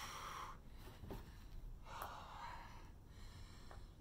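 A man breathing hard and loud through a set of bent-over rows: a forceful breath at the start and another about two seconds in, the breathing of a person under exertion.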